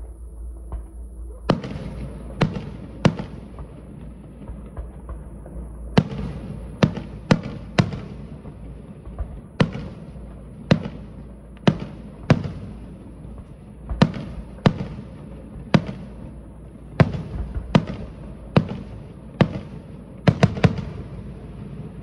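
Fireworks bursting: a run of about twenty sharp bangs, irregularly spaced about a second apart, each trailing off in a rumble. A quick cluster of three bangs comes near the end.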